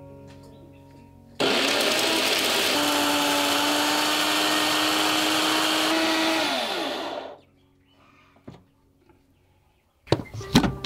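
Electric countertop blender switched on about a second and a half in, running loud and steady at full speed while it grinds, then switched off with its motor winding down to a stop around seven seconds in. Near the end come a few sharp knocks as the jar is lifted off the base.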